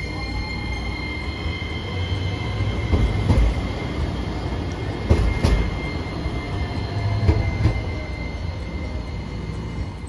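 Hiroshima Electric Railway 5100-series Green Mover Max articulated low-floor tram running past on street track: a low rumble with a steady high whine. Sharp wheel clacks come in pairs a few times as its bogies pass.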